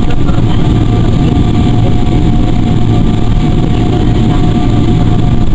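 Cabin noise of a Boeing 777-300 airliner taxiing: the jet engines hold a steady whine over a low, rumbling roll of the wheels on the taxiway.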